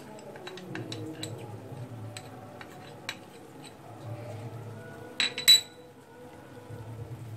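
Spoon clinking against a bowl as a ghee and milk-powder mixture is stirred and added to the cooking bottle gourd: light scattered clicks, then two sharp ringing clinks a little past five seconds in.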